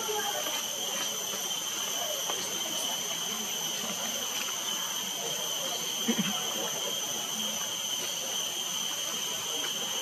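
Steady outdoor background hiss with two steady high-pitched tones running through it, faint indistinct voices, and one short low sound about six seconds in.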